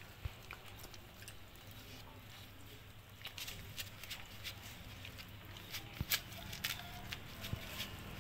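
Dog eating rice out of a styrofoam takeout box: soft irregular clicks and smacks of chewing and of the muzzle working against the foam container, getting busier about three seconds in.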